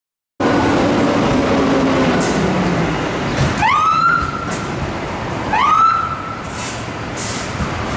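Electronic siren of a fire chief's SUV giving two short whoops about two seconds apart, each rising in pitch and then holding briefly, over a steady vehicle engine rumble. The sound starts abruptly under half a second in.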